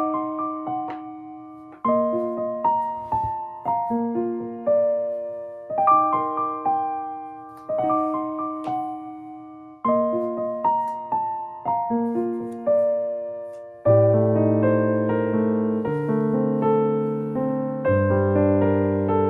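Background piano music: a gentle melody in repeating phrases of single notes, with a fuller, louder part of lower notes coming in about two-thirds of the way through.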